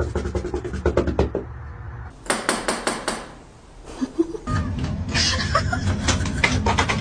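Rapid knocking or tapping in several quick runs, the last one starting about five seconds in.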